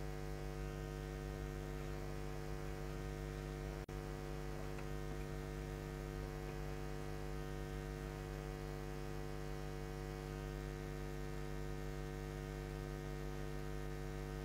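Steady electrical hum with a stack of even, unchanging tones, briefly cut by a tiny dropout about four seconds in.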